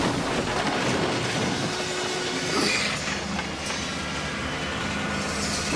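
Steady rushing noise like a violent wind, a television sound effect for a demon's whirlwind attack that has just smashed through a wall.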